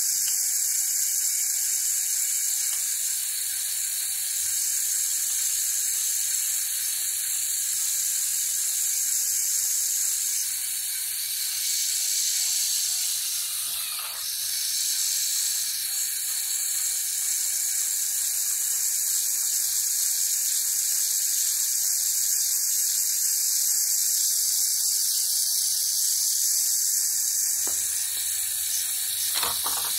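Lego gondola lift mechanism running: small electric motors and gear trains driving rows of rubber-tyred Lego wheels, a steady high-pitched whine with a couple of clicks near the end.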